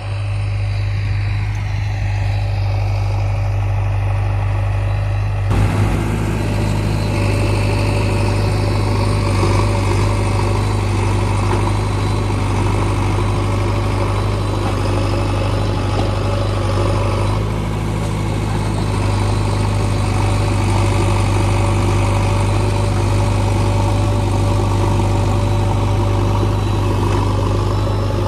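Heavy diesel engine running steadily, with a heavier, fuller sound coming in about five and a half seconds in.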